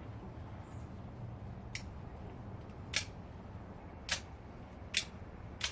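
Out-the-front (OTF) automatic knife being fired and retracted, its spring-driven blade snapping out and back in five sharp clicks about a second apart. The action still cycles after the blade has been stabbed into a steel dryer.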